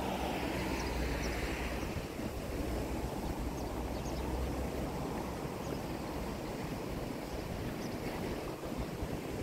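Outdoor seafront ambience: a steady wash of noise with wind on the microphone and a low rumble that eases about halfway through, with a few faint light ticks scattered through it.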